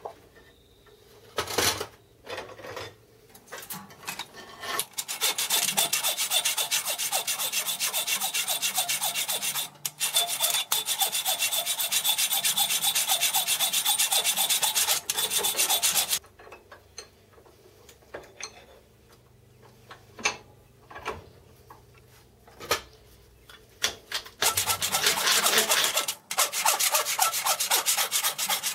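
Hand file rasping across a cast aluminium part clamped in a bench vise, in fast, even strokes. After a few knocks at the start, the filing runs for about ten seconds, stops for a spell of scattered knocks, and starts again near the end.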